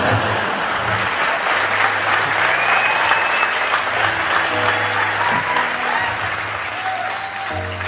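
A large audience applauding, dying down near the end, over a steady background music track.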